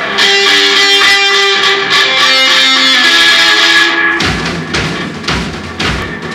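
Garage-rock jam: electric guitar playing held, ringing notes that change pitch. About four seconds in, the drum kit comes in with heavy hits and a fuller low end.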